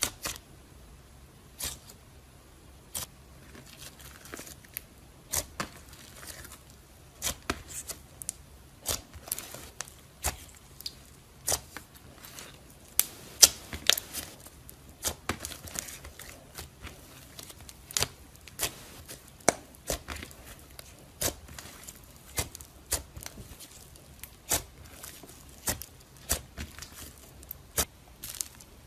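Hands kneading, stretching and folding slime, giving irregular sharp sticky clicks and pops, about one to three a second, as the slime is pressed and pulled apart.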